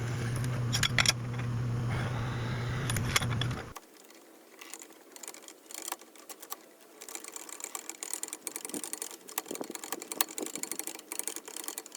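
Electric drill running steadily while drilling the tap hole in a steel part, then stopping abruptly about four seconds in. After that come faint, irregular light clicks and ticks of metal parts being handled.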